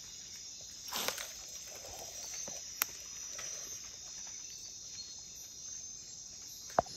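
Night chorus of rainforest insects: a steady high-pitched buzz. A few sharp clicks come about one, three and seven seconds in.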